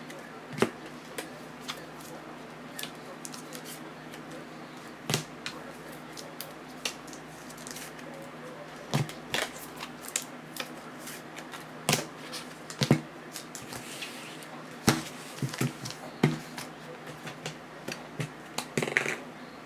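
Trading cards and card packaging being handled on a table: irregular clicks, taps and rustles of cardboard and plastic, with a busier stretch of rustling near the end.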